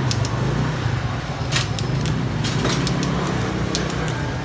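Steady low motor rumble, engine-like, with scattered sharp clicks and knocks on top.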